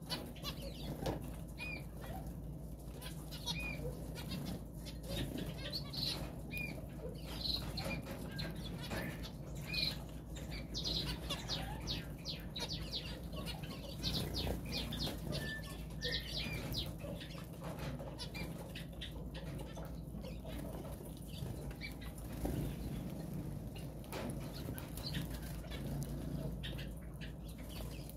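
A flock of small aviary finches, among them Gouldian finches, fluttering their wings and pecking at seed held in a hand, with scattered short high chirps and calls throughout.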